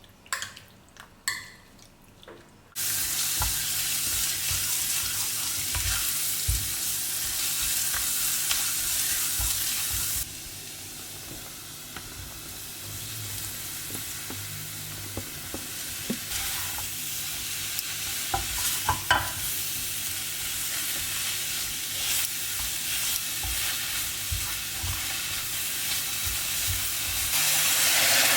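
Food frying in hot oil in a pan: a loud sizzle starts suddenly about three seconds in, after a few clicks, and eases off after about ten seconds. Utensil taps and scrapes from stirring run through the rest, and the sizzle swells again near the end.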